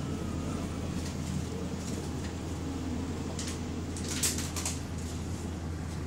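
Interior running noise of a moving bus: a steady low engine hum with road noise, and a few short rattles or clicks between about three and a half and five seconds in, the loudest just after four seconds.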